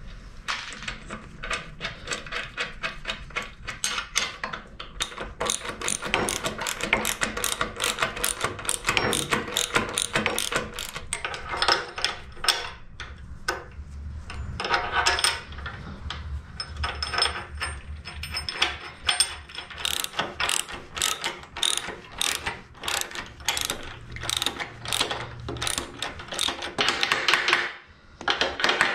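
Ratchet wrench clicking in quick runs as nuts are wound onto the bolts holding the horn guides and horn stays to a steel locomotive frame.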